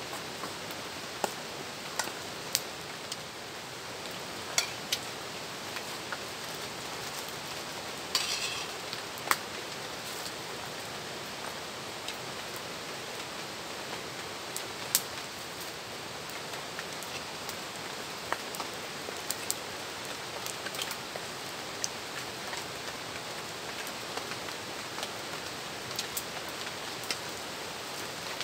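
Steady hiss of rain falling, with scattered sharp clicks of a spoon against a metal plate.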